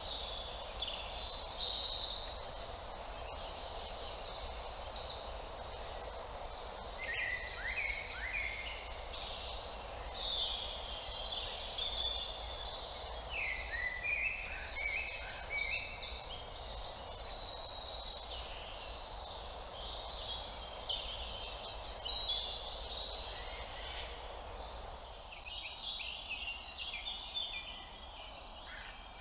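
A chorus of songbirds, many short overlapping chirps and trills at once, over a steady low background hum. It thins out and grows quieter in the last few seconds.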